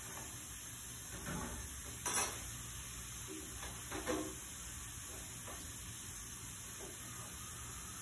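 Dishes being washed at a kitchen sink: a few soft clinks and knocks of crockery, the loudest about two seconds in, over a steady hiss.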